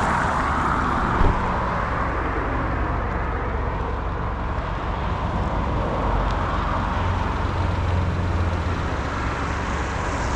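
Car engine and road noise, steady throughout, with one brief knock a little over a second in.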